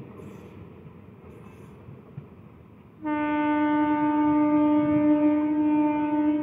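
Electric local train's horn sounding one long, steady blast that starts abruptly about three seconds in, over the faint rumble of the EMU train running away along the track.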